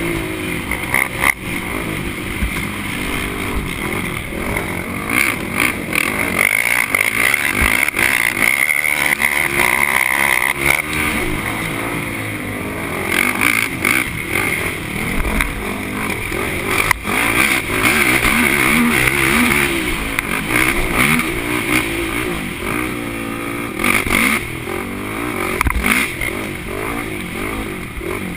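Race quad (ATV) engine running hard, its pitch repeatedly rising and falling with the throttle, with occasional knocks and rattles from the machine over rough ground.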